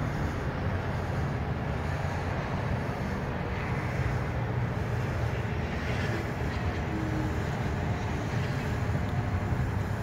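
A small 12V tire-inflator air pump running steadily with a low, even hum, pumping fogger smoke into the intake to pressurize it for a vacuum-leak smoke test.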